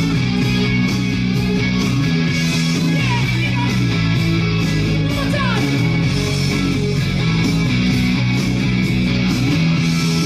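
Loud dance music with a steady beat, played without a break.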